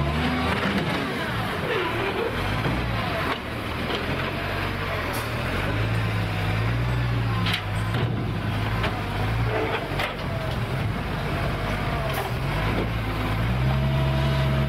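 Garbage truck's diesel engine running as its hydraulic loader arm lowers an emptied waste container, the engine note swelling and easing as the hydraulics work. A few sharp metal clanks from the arm and bin come through.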